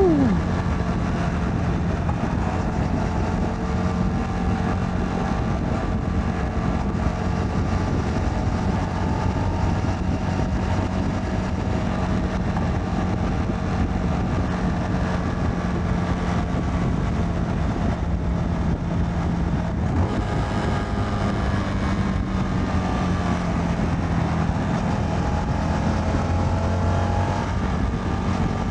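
Motorcycle engine running steadily at cruising speed, heard from the rider's helmet, with wind rushing over the mic; the engine note shifts about twenty seconds in. The bike is a CFMoto 300NK.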